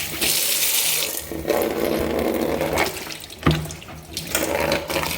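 Tap water running and splashing into a sink as something is rinsed under it, with a single knock about three and a half seconds in.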